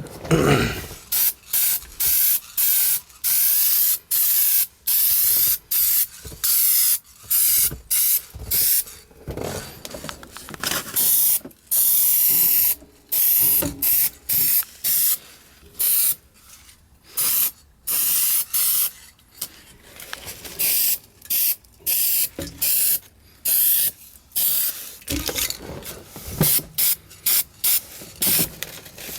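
Aerosol can of Rust-Oleum Hammered spray paint hissing in many short bursts, about one or two a second, with one longer spray near the middle, laying on thin coats.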